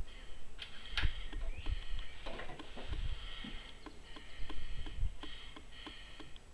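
A sharp metallic click about a second in as the QB 78 CO2 air rifle's bolt is worked, followed by soft handling bumps as the rifle is settled on the rest, with birds chirping throughout.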